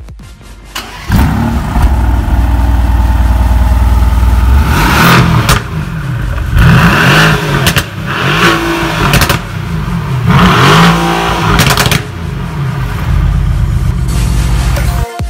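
Mercedes-AMG E 63 S's 4.0-litre twin-turbo V8, heard at the exhaust tips with the car standing: it idles, then from about five seconds in is revved in several quick blips, each rising and falling, with sharp cracks from the exhaust between them, and drops back to idle near the end.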